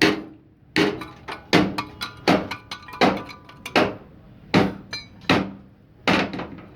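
Hammer striking metal over and over, about a dozen blows at an uneven pace of roughly one a second or faster, each hit ringing briefly.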